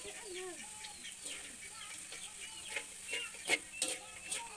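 Chickens clucking, with a few sharp clicks of a metal spoon against a wok being stirred about three seconds in.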